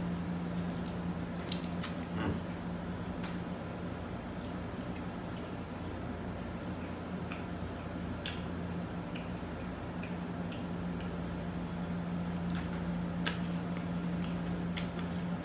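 Eating crispy fried chicken by hand: the coating and meat tearing, with wet chewing and small crackles and clicks scattered throughout, over a steady low hum.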